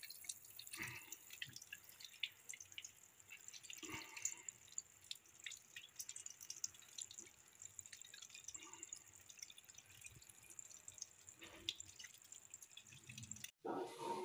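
Water dripping and splashing faintly as raw chicken pieces are rubbed and rinsed by hand in a plastic colander, in small irregular splashes.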